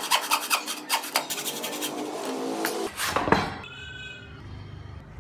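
Hand frame saw cutting through a block of wood in a quick run of strokes for about three seconds, ending with a louder stretch before it stops.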